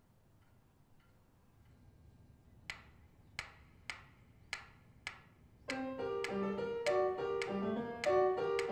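A pyramid metronome ticking, a little over half a second between ticks. About two-thirds of the way in, a Hohner piano accordion starts playing chords and a tune in time with it, louder than the ticks.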